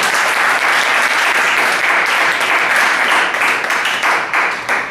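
Audience applauding, a dense patter of many hands clapping that dies down right at the end.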